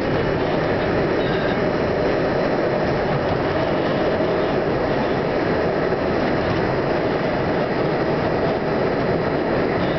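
R42 New York City subway train running steadily through a tunnel, heard from inside the front car as a constant, even rumble of wheels on rail.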